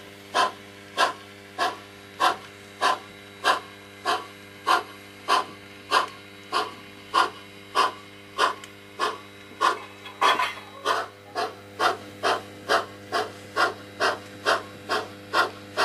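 Soundtraxx Tsunami sound decoder in an HO-scale Pennsylvania Railroad 0-6-0 steam switcher, playing steady exhaust chuffs through the model's small speaker over a steady low hum. The chuffs come about one every 0.6 s and quicken to about two a second after about ten seconds as the locomotive picks up speed.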